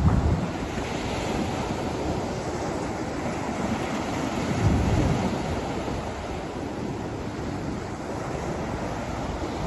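Surf breaking on a sandy beach, a steady wash of waves with wind buffeting the microphone in two low rumbles, near the start and about halfway through.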